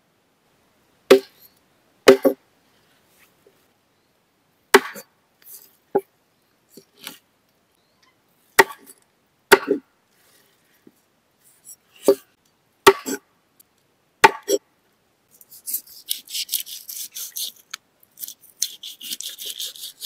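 A blade chopping on wood: about a dozen sharp blows, irregularly spaced a second or more apart, some in quick pairs. Near the end come several seconds of quick, rasping scraping.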